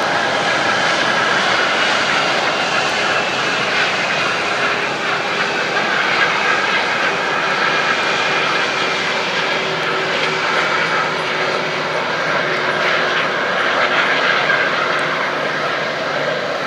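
Airbus A320 airliner's jet engines running at low taxi thrust: a steady jet rush with a high whine over it.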